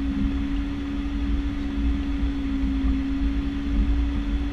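Piper Cheyenne II's Pratt & Whitney PT6A turboprop engines running at taxi power, heard from inside the cockpit. A steady drone with one constant tone over a low rumble.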